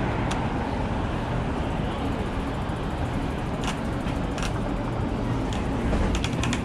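Steady city street traffic noise, a low rumble throughout, with a few short clicks a little past the middle.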